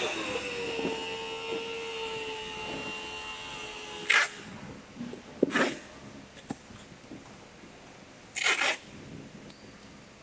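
Packing tape being pulled off a hand-held tape gun to seal a cardboard carton: short rasping strips a few seconds apart. Over the first four seconds, a steady tone that sinks slightly in pitch sits underneath.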